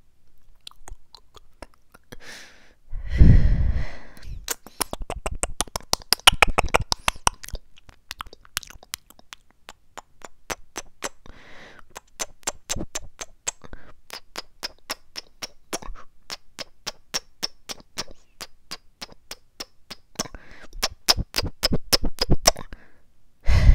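Close-miked mouth sounds made with the lips right on a small handheld microphone: runs of quick tongue and lip clicks and smacks. There is a louder breathy rush into the mic about three seconds in.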